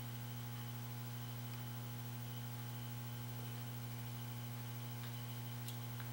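Steady low electrical hum, with a couple of faint metallic ticks near the end from a bolt being turned by hand into a cast gearbox housing.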